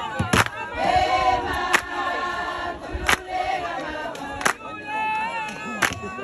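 A group of voices singing a Zulu traditional song in chorus, with a sharp beat struck about every second and a half.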